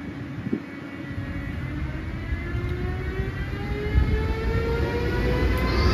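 Amtrak Siemens ACS-64 electric locomotive drawing near, its traction motor whine rising steadily in pitch as it gathers speed. Beneath it is a rumble that grows louder toward the end.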